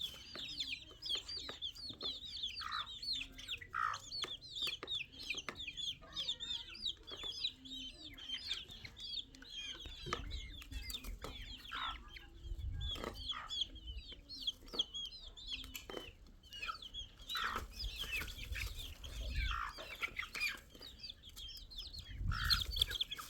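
Chickens calling: a dense, continuous run of short high cheeping calls with occasional lower clucks mixed in, and a few low thuds in the second half.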